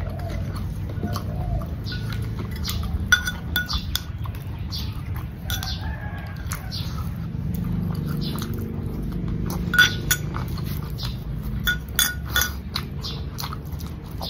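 A metal spoon clinking against a glass bowl in a few sharp strikes while scooping chili dip, among close-up chewing and mouth sounds of eating. A steady low hum runs underneath.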